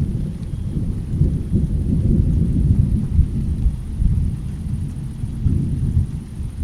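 Thunder rumbling low and long, swelling to its loudest a few seconds in, easing, then rising again near the end.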